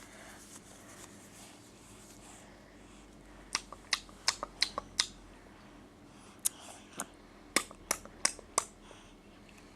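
A baby making sharp clicking noises with her mouth: a quick run of about half a dozen clicks, a short pause, then another run of about half a dozen.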